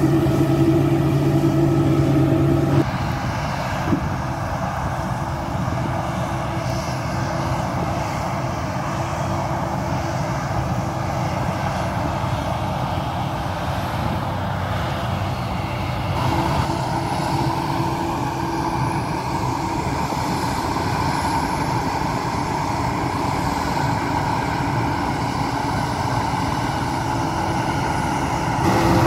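Claas Lexion 660 combine harvesters running while harvesting grain: a steady drone of engine and threshing gear, loud and close for the first few seconds, then quieter and more distant for the rest.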